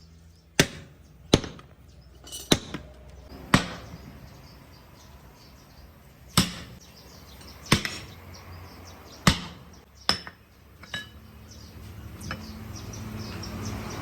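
A series of sharp, hammer-like strikes, about nine in all, coming at uneven gaps of one to three seconds.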